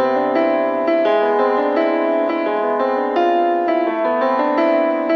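Background music: a keyboard playing a run of melodic notes.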